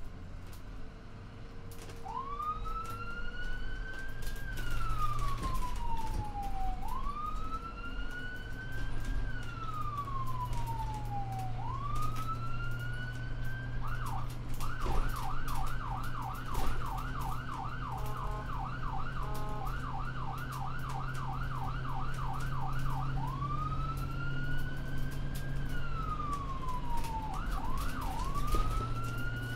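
Electronic siren sounding a slow rising-and-falling wail, then switching to a fast yelp for about nine seconds before going back to the wail. A steady low hum runs underneath.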